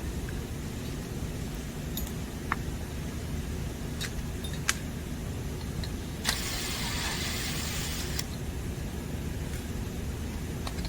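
Small metallic clicks and clinks of screws and hardware being worked loose from a motor mounting bracket, over a steady low hum, with a hissing whir lasting about two seconds just past the middle.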